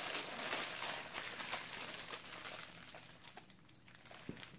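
Plastic Moon Pie wrappers crinkling as they are peeled open, fading out after about three seconds.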